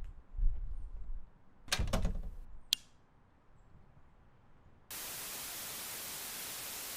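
Cartoon sound effects: a low thud, then a cluster of heavy thumps about two seconds in and a sharp click. About five seconds in, a steady hiss of white-noise static cuts in abruptly.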